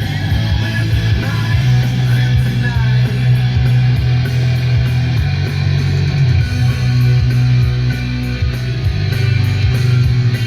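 Rock music with guitar over a strong, steady bass.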